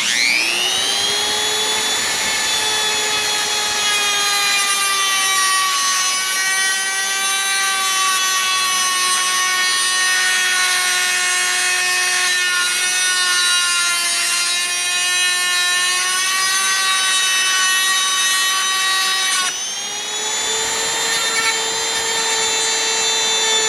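Electric power tool spinning up and running with a steady high whine while it cuts an RC boat's steel flex drive cable to length. The pitch sags slightly under load. Just before the end the level drops and the whine settles a little higher.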